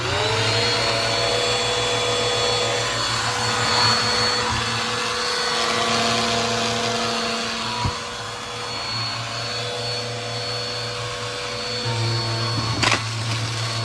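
Upright bagless vacuum cleaner switched on, its motor spinning up to a steady whine over a broad rush of suction, now running after a clog was cleared. A sharp knock comes near the end.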